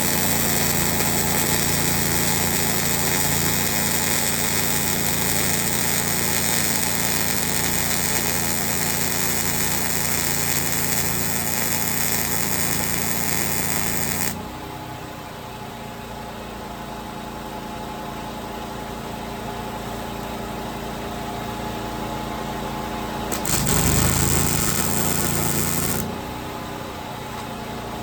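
Grinder beveling steel, a loud steady grind that stops suddenly about halfway through. A quieter steady machine hum carries on after that, with a short louder burst of grinding a few seconds before the end.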